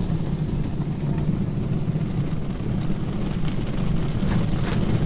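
Steady low rumble and rushing noise heard inside a car's cabin, with a few light taps in the second half.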